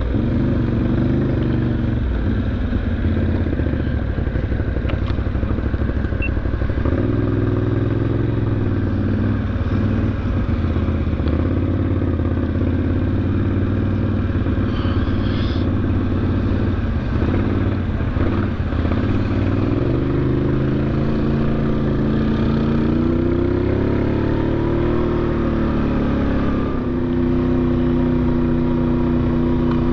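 ATV engine running while riding a gravel trail, its pitch rising and falling with the throttle. It goes uneven for a few seconds around the middle, then climbs and holds a steadier, higher note near the end.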